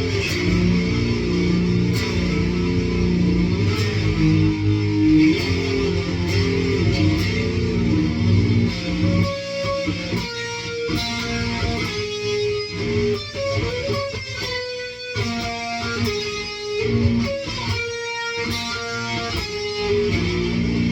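Six-string electric guitar in A-sharp standard tuning, played through an amp with overdrive, distortion and chorus pedals, sounding heavy and dirty. It starts with low sustained chords. From about nine seconds in it changes to choppier single-note riffing with short gaps.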